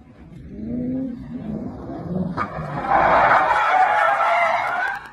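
Ford Mustang engine revving with its pitch rising, then from about halfway through a loud, harsh rush of tyres skidding as the car slides past. The noise cuts off sharply near the end.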